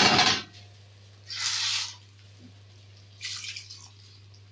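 Running water in short bursts: a loud splash fading out at the start, then two brief runs of about half a second each.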